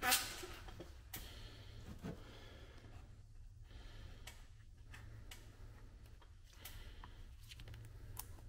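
Faint handling sounds of a fiberglass rub-rail end cap being worked onto the rail by gloved hands: light clicks, scrapes and rustles, with a sharp knock right at the start, over a steady low hum.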